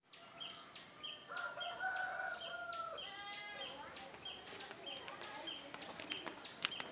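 A rooster crowing once, a long call of about two seconds that falls away at the end, over a high chirp repeating steadily about every two-thirds of a second.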